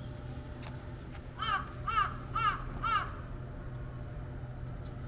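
A crow cawing four times, the calls about half a second apart.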